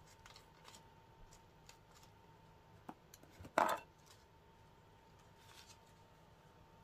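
A foil packet of bath bomb crumbles being handled and opened: faint rustles and small clicks, a sharp click about three seconds in, then one short, louder crinkling rip of the packet a moment later.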